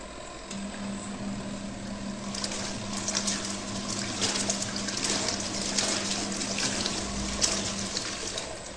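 Mini washing machine running. A motor hum starts about half a second in and stops near the end, with water sloshing and splashing that grows louder from about two seconds in.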